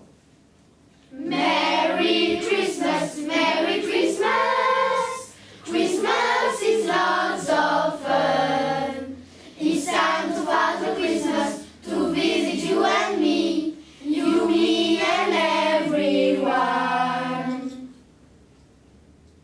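A group of children singing together in several phrases, with short breaks between them; the singing starts about a second in and stops shortly before the end.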